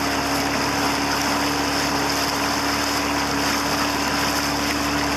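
A 1999 Mariner 15 hp short-shaft outboard motor runs steadily with the boat under way at a good speed, its engine note holding an even pitch. Water is rushing beneath it.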